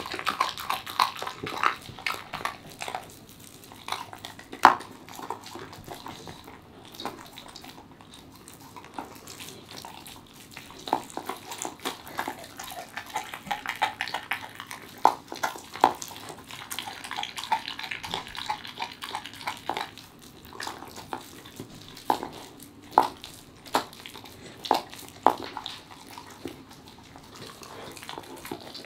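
A Welsh corgi chewing and tearing at raw meat with skin and bone: wet smacking and gnawing, broken by frequent sharp crunches at an uneven pace.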